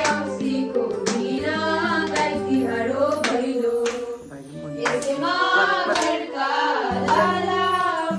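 A group of women singing a festive song together in unison, with hand claps about once a second keeping the beat over a steady low accompaniment.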